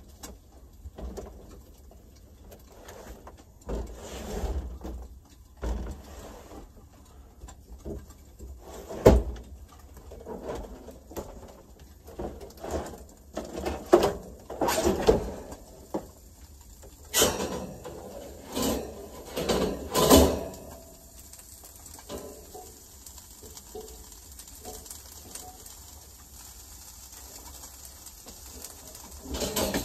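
Irregular knocks, clinks and rummaging as cookware, utensils and cabinet contents are handled in a small camper kitchen, with several sharper knocks in the middle.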